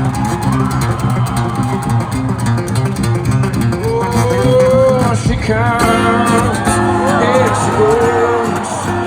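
Live concert music recorded from the crowd: a band playing, with a guitar leading in bent, gliding notes over the bass.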